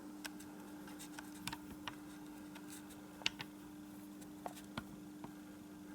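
Faint steady electrical hum with scattered light clicks and taps, the clearest about three seconds in.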